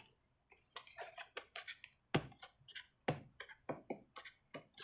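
Cardboard blind-box packaging being handled and torn open by hand: a run of irregular crackles and clicks.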